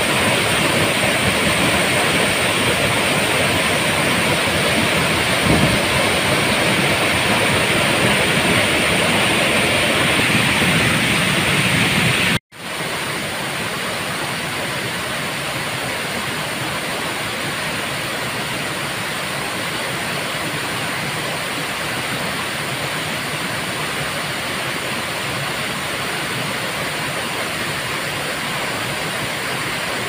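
Waterfall in full flow: a steady, loud rush of falling water. About twelve seconds in it cuts off for an instant and comes back a little quieter.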